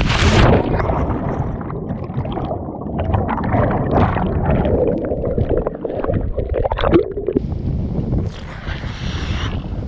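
A splash as a jumper wearing the camera plunges into the river, then the muffled rumble and bubbling of water around a submerged action camera, ending with water slapping at the microphone as it breaks the surface.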